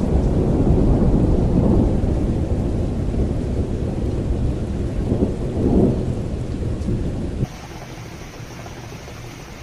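Thunder rumbling low and continuously over heavy rain, swelling briefly about six seconds in. A little after seven seconds it cuts off suddenly to a quieter, even rain hiss.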